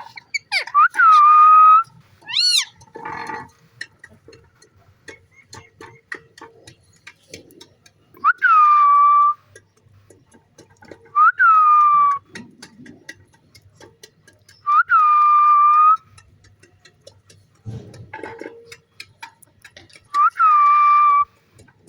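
Green parrot whistling: five loud, clear whistled calls a few seconds apart, each dropping sharply in pitch and then held for about a second. A quick rising-and-falling whistle comes between the first two.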